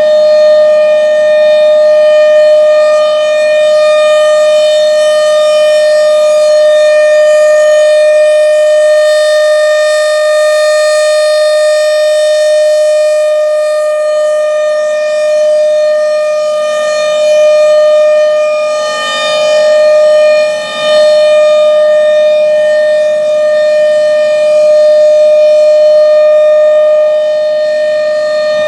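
Federal Signal Thunderbolt 1000 blower-driven outdoor warning siren sounding a loud, steady single tone at full speed during its monthly test. The pitch holds constant while the loudness rises and falls a little, with a short dip about twenty seconds in.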